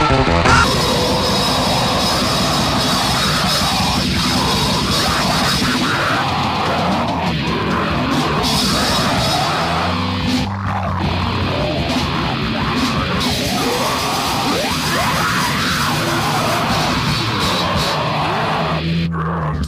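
Loud, heavy rock music: a full band playing without a break.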